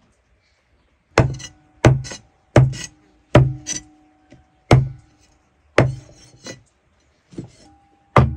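Heavy chopping blows on wood, about nine sharp strikes spaced roughly a second apart, several of them leaving a short ringing tone.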